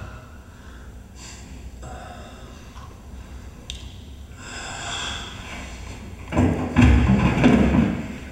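Film soundtrack playing through a hall's speakers: scattered faint noisy sounds, a hissing swell about halfway through, then a louder, deep noisy burst for the last two seconds.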